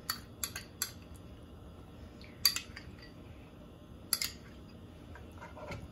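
Metal spoon clinking and scraping against a glass bowl as lumps of ghee are scraped out into a wok: a few sharp clinks in the first second, a louder one about two and a half seconds in and another about four seconds in, over a low steady hum.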